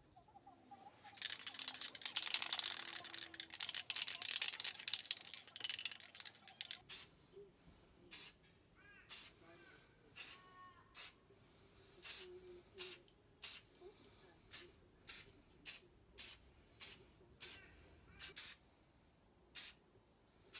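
Aerosol spray paint (Rust-Oleum 2X Ultra Cover) applying a top coat to hanging metal clamps. First comes a rough, rattling hiss lasting about five seconds, then more than a dozen short spray bursts, a little over one a second.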